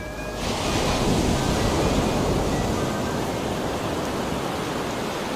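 Giant ocean waves surging and breaking: a loud, steady rush of water noise that swells in about half a second in.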